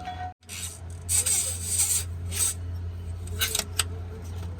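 Steady low machine hum with several short scraping noises.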